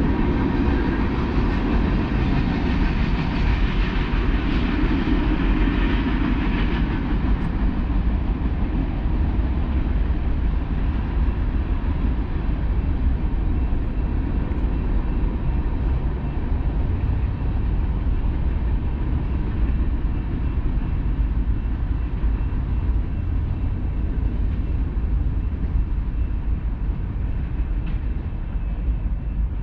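A train rolling past with a steady rumble and faint steady ringing tones over it. It is brighter and fuller for the first several seconds, then eases off slightly.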